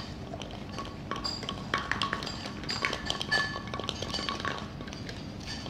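Light clinks and taps of a small plastic cup and paper wrapping being handled as a prize is unwrapped, many short clicks, some with a brief ringing note.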